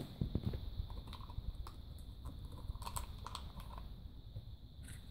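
Scattered light clicks and taps from a plastic surprise-toy capsule and its clear wrapper being handled on a table, irregular and a few per second at most.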